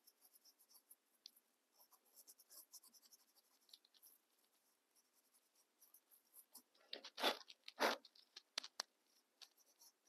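Coarse, dense bristle brush scrubbing dry pastel onto an artificial duck foot: faint brushing strokes, with a run of louder scrubbing strokes about seven to nine seconds in.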